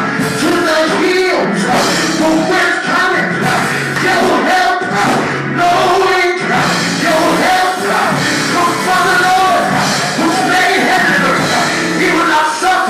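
Loud live music with singing, continuous and dense.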